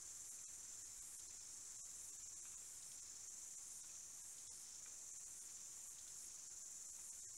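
Faint, steady high-pitched chorus of insects, a continuous shrill trill that swells and fades slightly.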